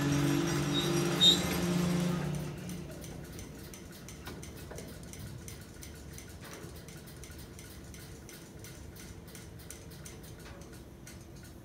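Railroad crossing signal's electronic bell ringing with steady tones for about two and a half seconds, then dropping off sharply to a faint, fast, even ticking.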